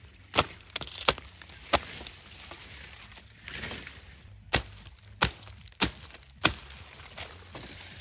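Sharp chopping strokes of a blade, seven in all: three in the first two seconds, then four in a steady run about two-thirds of a second apart in the middle.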